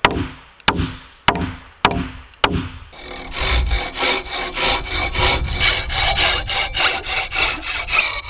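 An axe chopping wood with about five sharp, evenly spaced blows, then a hand saw cutting through wood in quick back-and-forth strokes from about three seconds in.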